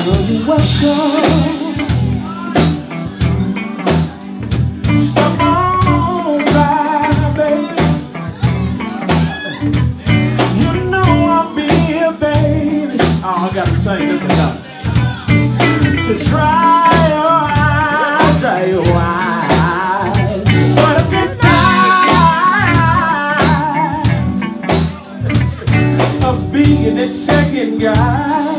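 Live band playing: a man singing over electric guitar, electric bass and a drum kit keeping a steady beat.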